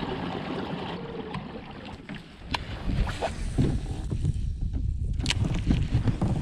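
Water washing against a plastic fishing kayak's hull, with wind buffeting the microphone. A few sharp clicks come through, the strongest about five seconds in.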